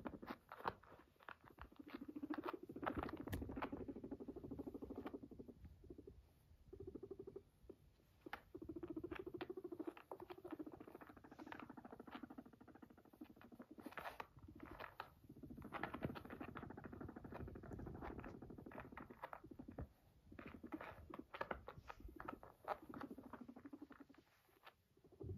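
Guinea pig purring while being stroked: repeated bouts of a rapid buzzing purr, each one to three seconds long, with short soft clicks between them.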